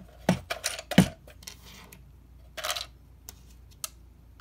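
Small plastic Micro Machines toy ships clicking and knocking against the hard plastic storage compartment of a toy playset as they are pushed inside. A run of sharp clicks comes in the first second or so, the loudest about a second in, then a short scraping rustle and a couple of single ticks.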